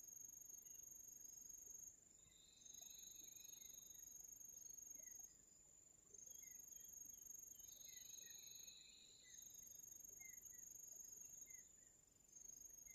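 Faint insects trilling: a steady high-pitched trill that breaks off and starts again every few seconds, with a lower buzz joining twice and a few faint scattered chirps.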